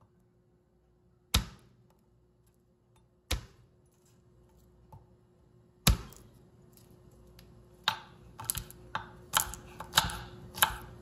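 Kitchen knife on garlic cloves against a plastic cutting board: three sharp knocks about two seconds apart as the blade is pressed and smacked flat onto cloves to crush them, the third the loudest, then a quicker run of lighter knife clicks on the board as the cloves are cut and peeled near the end.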